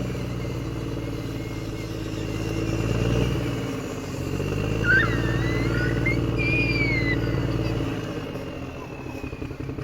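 An engine running with a steady low hum. It dips briefly about four seconds in, picks up again, and fades out near the end, with a few short high squeaks in the middle.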